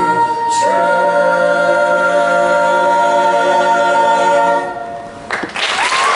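Mixed youth choir singing a cappella, holding a final chord of several voices for about four seconds before cutting off. A little after five seconds in, audience applause breaks out.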